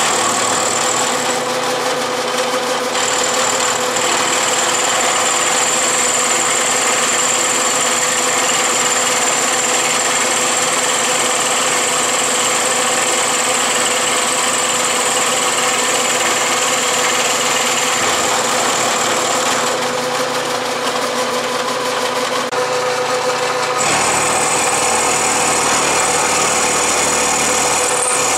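Milling machine running, its end mill cutting into the steel of a three-jaw scroll chuck: a steady mix of motor hum and cutting noise with a high whine. The sound of the cut changes about twenty seconds in and again a few seconds later.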